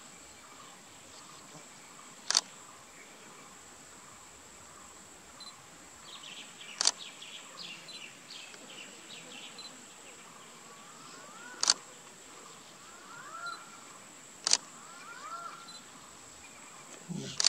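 Open grassland ambience: a steady high insect hiss with scattered bird chirps and short rising whistles, broken by four sharp clicks a few seconds apart.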